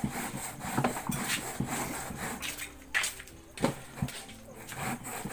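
Peeled cassava root being grated by hand on a metal grater into a steel basin: repeated rasping strokes, about three a second at first, then fewer and more spaced out.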